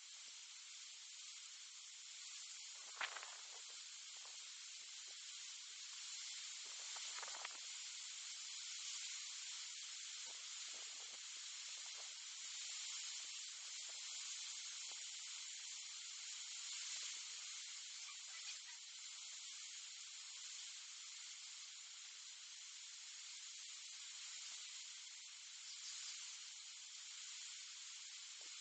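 Faint, steady background hiss, with a single brief click about three seconds in.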